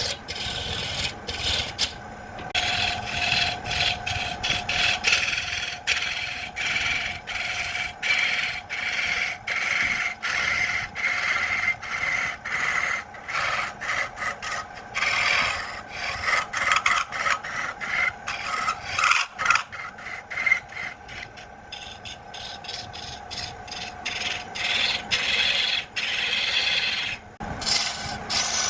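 Wood being rasped by hand, a rough abrasive scraping in quick repeated strokes.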